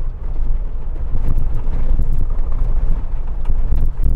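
Cabin noise of a 2021 Jeep Wrangler Rubicon driven at 60 km/h over rough terrain: a steady deep rumble with scattered knocks and rattles from about a second in.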